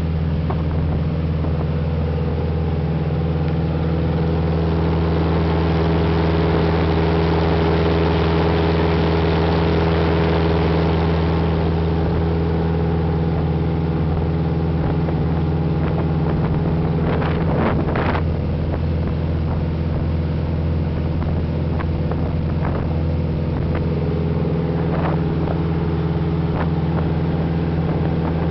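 Small motorboat's engine running steadily under way at speed, an even drone with water rushing past the hull. A few short knocks sound about two-thirds through.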